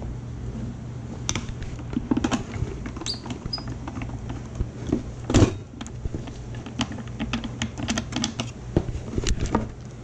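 A screwdriver clicking and scraping in the screws of a Megger DLRO10HD's plastic case as they are backed out. Irregular plastic clicks and knocks are heard as the case is handled, with one louder knock about five seconds in, over a steady low hum.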